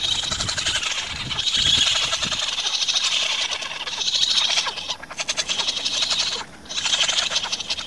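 Litter of raccoon kits, their eyes not yet open, chittering continuously in high-pitched rapid trills, in phrases with a couple of brief breaks.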